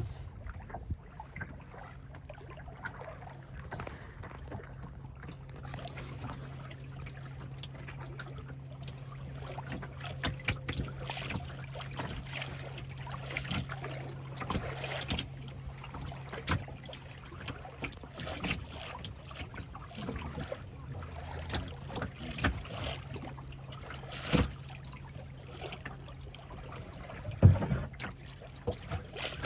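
A boat's motor hums steadily while water splashes and slaps irregularly against the hull, with one louder knock near the end.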